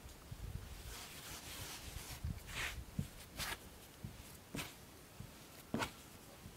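Hands kneading bread dough on a floured plastic board: faint pressing and rubbing, with several soft thumps as the dough is pushed down and folded.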